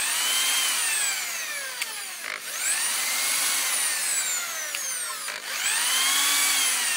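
Cordless drill spinning an engine valve against its seat to lap it in with grinding paste. The drill stops and starts again twice, about every three seconds, reversing direction. Its motor whine rises as it speeds up and falls as it slows, over the rough scraping of the valve on the seat.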